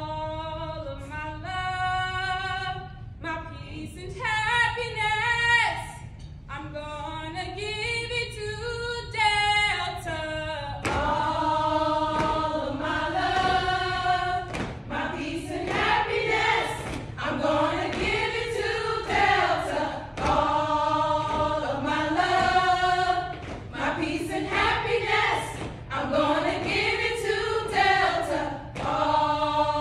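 A group of women singing a cappella in unison, a chant-like song with a swinging melody. About ten seconds in the singing becomes fuller and louder.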